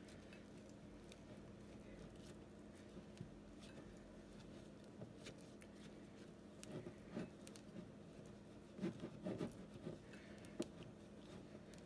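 Faint scraping and squishing of a silicone spatula stirring thick sourdough starter in a glass mason jar as flour and water are mixed in, with small clicks; the stirring comes in short clusters in the second half. A faint steady hum runs underneath.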